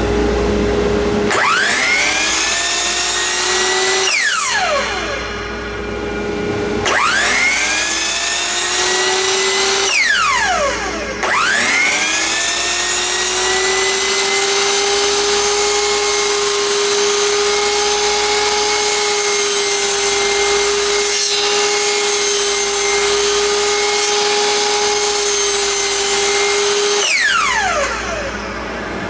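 Metabo miter saw run three times, its motor whining up to speed and then winding down each time, as a board is cut. The third run is long and steady. Dust collector hum underneath.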